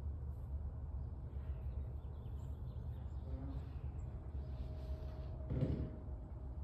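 Steady low outdoor background rumble, with a brief louder handling noise about five and a half seconds in.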